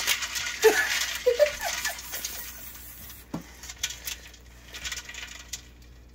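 Metal tongs clinking against a stainless steel stock pot and ice cubes rattling as live blue crabs are put into ice water to kill them. The clicks are thick at first and thin out, with one sharper knock partway through.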